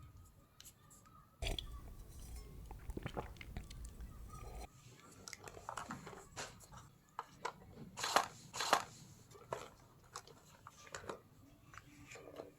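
Small plastic toy pieces being handled close to the microphone: a string of light clicks, taps and crinkles, with two louder crackles about eight seconds in.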